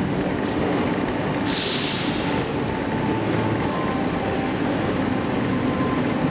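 1985 KONE inclined elevator car running along its inclined track, a steady rumble, with a brief hiss about a second and a half in.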